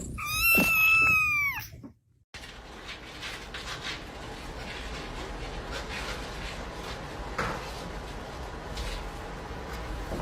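A cat's long, high meow, rising and then falling, lasting nearly two seconds. After a short break comes quiet room noise with a few faint clicks.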